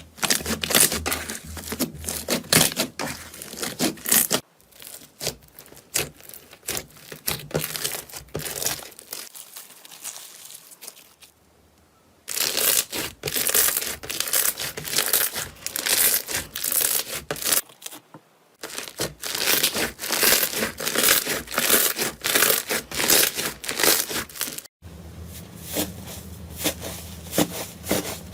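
Slime being pressed and stretched by hand, giving dense crackling and popping clicks. It changes abruptly a few times, with a much quieter stretch around the middle.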